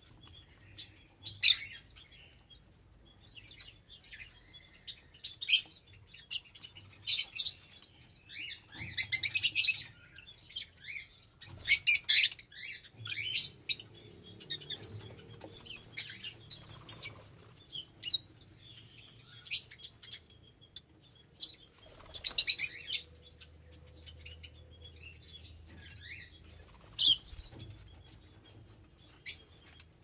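Pet love birds, small parrots, chirping in irregular short bursts of sharp, high calls. The loudest bunched chattering comes about a third of the way in.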